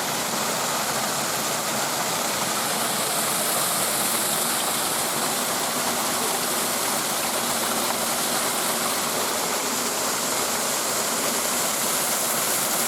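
Fast-flowing stream rushing over rocks, a steady even hiss of water.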